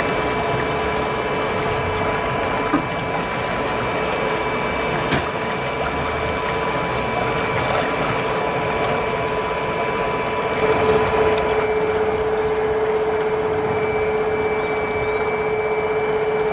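CREE MH 108 brushless electric outboard motor running under way, with a steady whine over the churning of its propeller wash.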